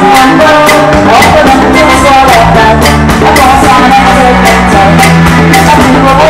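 A woman singing into a handheld microphone over a live band, loud, with drums and a steady bass line.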